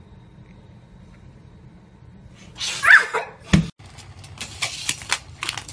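A short, high, wavering cry, then a thump. After that a run of light, sharp clicks and clatters, like a plastic toy car rattling on a plastic track.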